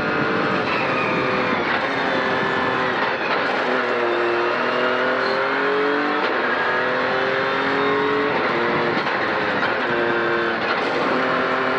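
Ford Fiesta Rally3's turbocharged 1.5-litre three-cylinder engine heard from inside the cabin under hard driving. The revs climb and fall back several times, over a steady rush of tyre and road noise.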